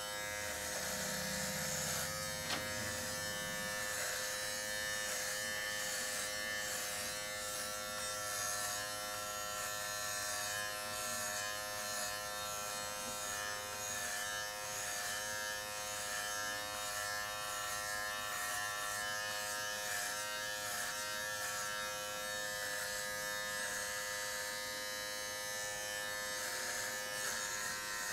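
Philips Norelco MG9000 Prestige cordless trimmer with a 1 mm guard running with a steady, high-pitched buzz as it cuts short hair close to the scalp.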